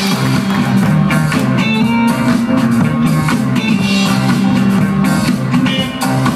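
Loud music with guitar and a drum kit, played over a sound system for dancing.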